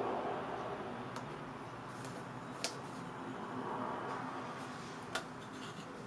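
Soft handling sounds of bookbinding thread being drawn and knotted at a journal's spine with a pick, with two small sharp clicks, one about halfway through and one near the end.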